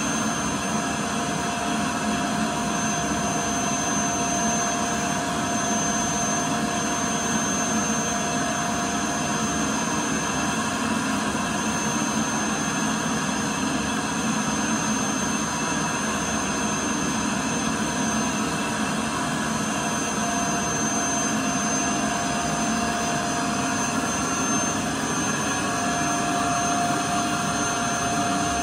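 Bagless cyclonic canister vacuum cleaner running steadily: an even rush of air with a steady high whine.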